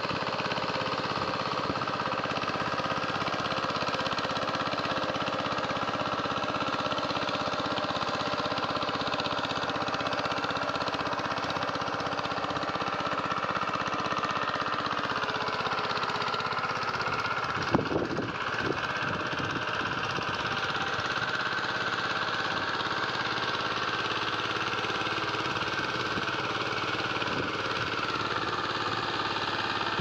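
VST power tiller's single-cylinder diesel engine running steadily under load as it ploughs. A single sharp knock is heard a little past halfway.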